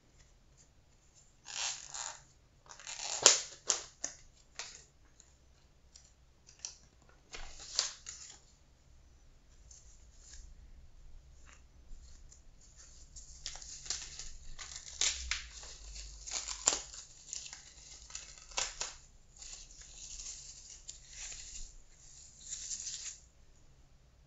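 A warming eye mask packet torn open by hand, with a few sharp rips in the first seconds. Then a long stretch of crinkling and rustling as the mask is pulled out and handled.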